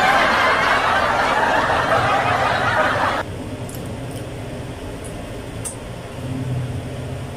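A burst of crowd laughter, the kind added as a laugh-track sound effect, which cuts off abruptly about three seconds in. After it come low room noise and a few faint clicks.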